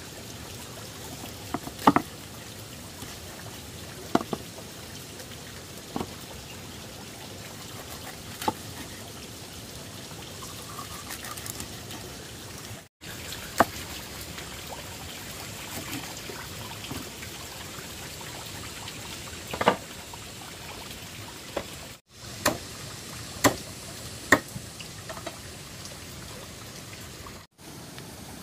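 Water pouring and trickling, with a few sharp knocks or clatters at irregular intervals.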